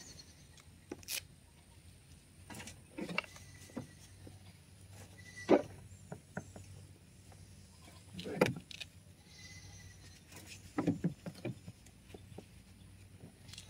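A steel shovel scraping into a heap of mushroom compost in a pickup truck bed and tipping each load into a wheelbarrow, one short scrape-and-drop every two to three seconds. The loudest stroke comes about five and a half seconds in.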